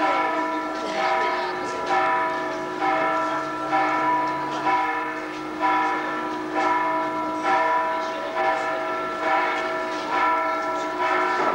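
Bells ringing in a steady sequence, a new strike about once a second, each note ringing on under the next so the tones overlap.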